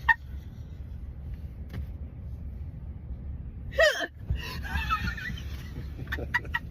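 A woman hiccuping uncontrollably: a short hiccup right at the start and a louder, voiced hiccup about four seconds in, followed by softer breathy sounds and a few faint clicks near the end.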